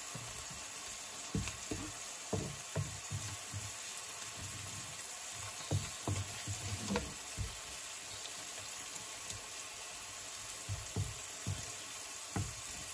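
Steak frying in butter in a non-stick frying pan, a steady sizzling hiss, with irregular soft knocks and scrapes of a wooden spatula pushing garlic and onions about the pan.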